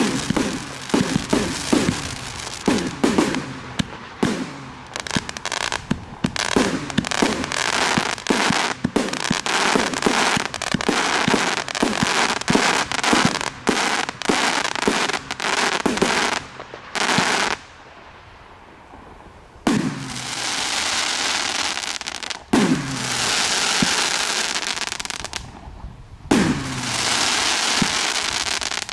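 A 288-shot professional firework cake firing. For the first half it sends up a rapid string of shots and bursts. After a brief lull, single shots follow, each trailed by a few seconds of crackling from the stars.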